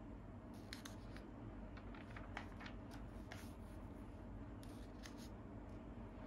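A paper comic magazine handled and a page turned by hand: soft rustles and crinkles of paper, thickest in the middle, over a faint steady hum.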